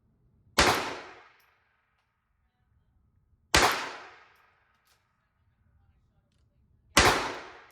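Three single shots from a Walther PPK/S .22 LR pistol firing CCI Mini-Mag rounds, about three seconds apart. Each is a sharp crack with a tail that dies away over about a second.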